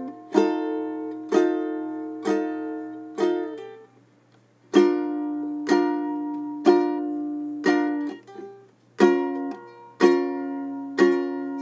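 Music on a plucked string instrument: slow strummed chords, about one a second, each left to ring and fade, with a short pause about four seconds in.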